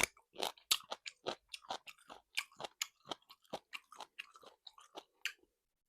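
Chewing a salt-baked chicken wing: a rapid, irregular run of crisp crunches that stops about five seconds in. The crunching comes from the chewy, crunchy skin and cartilage being bitten through.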